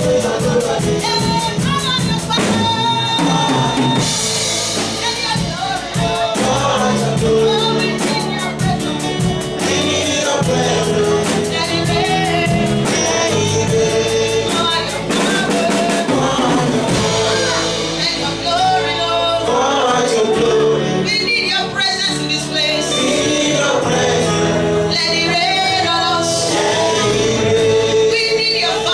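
Gospel praise music: voices singing together over a band with drums and a steady beat.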